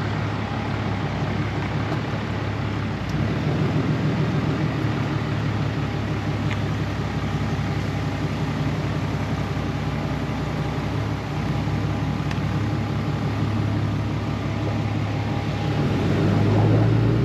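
Vehicle engine and road noise heard from inside the cab of a slowly driving pickup truck: a steady low rumble that grows louder near the end.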